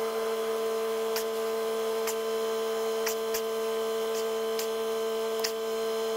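Steady electrical mains-type hum with a few faint, scattered ticks. It starts and stops abruptly.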